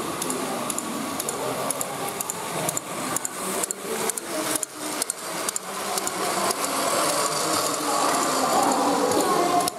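Battery-powered Plarail toy trains running on plastic track: a steady small-motor whine with wheels clicking over the track joints, the clicks thickest around the middle as a train passes close by.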